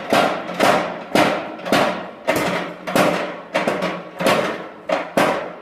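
Mechanical power hammer forging a hot steel bar, its ram striking in a steady rhythm of a little under two blows a second, each a sharp hit with a short metallic ring; a couple of blows come closer together past the middle.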